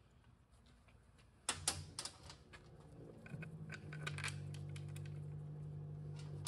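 Steel bolts clinking against each other and the aluminium tail housing of a Subaru 5EAT automatic transmission as they are picked up, set in and hand-threaded. There are a dozen or so light metallic clinks, and a low steady hum comes in about a second and a half in.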